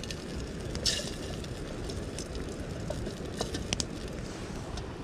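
Campfire crackling, with scattered sharp pops and a brief hiss about a second in, over a steady low rumble.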